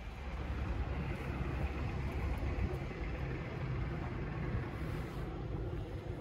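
Road traffic: a car passing by, a steady low rumble of engine and tyres that swells just after the start and holds.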